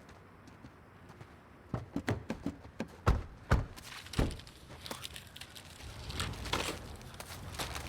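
A quiet start, then a run of knocks and thuds beginning about a second and a half in, the loudest near the middle, followed by a low hiss with a few lighter clicks.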